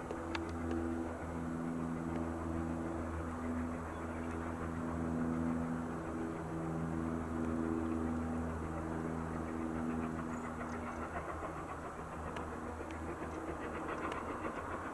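Distant steam locomotive working uphill over a steady low hum. Its exhaust beats come through faintly as a quick, even run of chuffs near the end.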